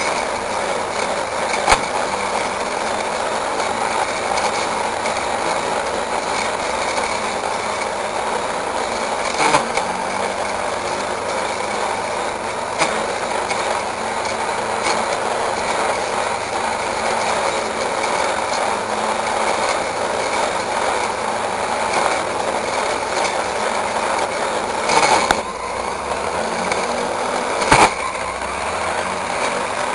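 Petrol brush cutter running steadily as its metal blade cuts through weeds and grass, with a few sharp ticks through the run.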